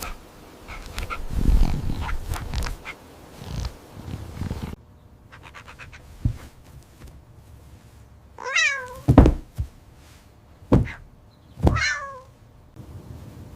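A cat meowing twice, each meow falling in pitch, among several sharp thumps and knocks. Rumbling and knocking come first, before the meows.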